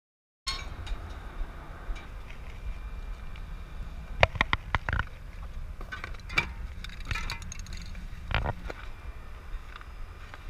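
A low steady rumble, as of wind on the microphone or distant traffic, with sharp clicks and clinks of objects being handled: a quick run of them about four to five seconds in, then single ones later.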